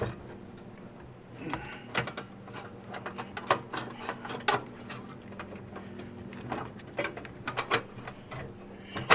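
A garden tractor battery being pushed and worked into a tight battery compartment: irregular knocks, clicks and scrapes, with a faint steady hum underneath.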